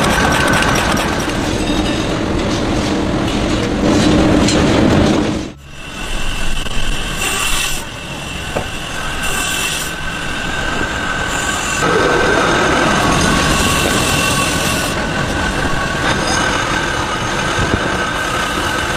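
Wood-cutting machinery for match splints running steadily, with a loud mechanical clatter; the sound changes abruptly about six seconds in as the footage cuts to another machine.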